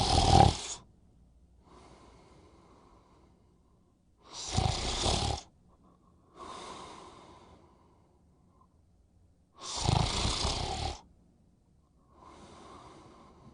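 A person snoring: three loud snores about five seconds apart, each with a deep rumble, and each followed by a softer breathy sound.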